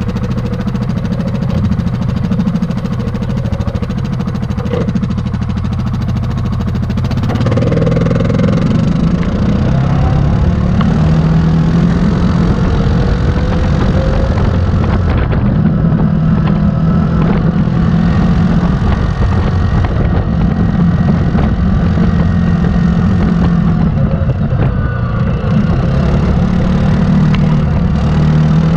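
2018 Yamaha Grizzly 700 ATV's single-cylinder four-stroke engine idling, then getting louder about seven seconds in as the ATV pulls away and runs under throttle, the engine note rising and falling.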